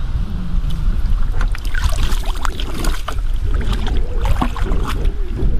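Wind rumbling on the microphone, with scattered small clicks and scrapes.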